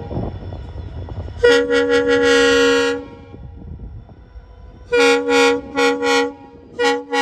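Horn of an Indian Railways WDP4D diesel locomotive as the train pulls into the station: one long blast of about a second and a half, then, after a pause, a run of short blasts near the end.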